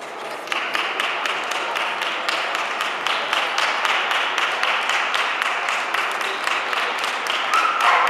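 Spectators clapping in a steady rhythm, about three to four claps a second, starting about half a second in. A short call rises over the clapping near the end.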